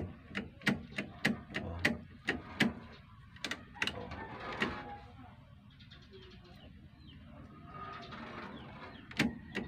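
A quick run of sharp clicks and taps, about ten in the first three seconds, a few more in the middle and two near the end, from wiring being handled and tapped. Between them, a quieter stretch with faint bird calls.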